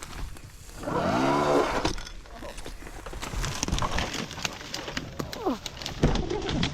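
A person's drawn-out vocal sound about a second in, rising and then falling in pitch, among scattered sharp clicks and snaps.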